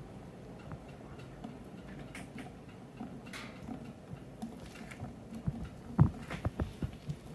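Cheesecloth bundle of wax cappings squeezed in gloved hands, with faint crackling and squishing, then from about five seconds in a run of irregular sharp ticks as honey drips into the stainless-steel strainer below. The loudest tick comes about six seconds in.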